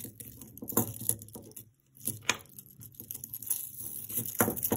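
Tangled metal necklaces being worked apart by hand: chains and beads clinking and rattling, with a few scattered sharp clicks.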